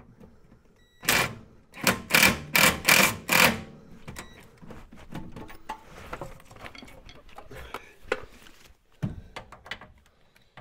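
Ryobi cordless impact tool hammering in a quick series of five or six short bursts, then a single burst later on, snugging the MGB's front suspension bolts into position before final torquing. Light clinks of tools and parts being handled between the bursts.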